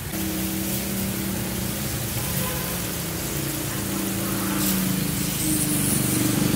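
Steady mechanical hum of a running motor over a background hiss, growing a little louder toward the end.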